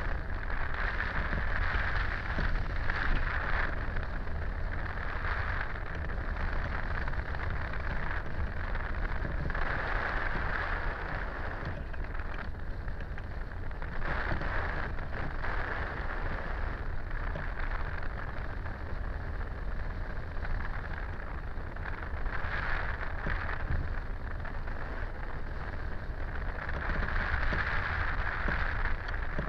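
Wind rushing over a camera mounted on a hang glider in flight: a steady noisy rush with a deep rumble that swells and eases every few seconds.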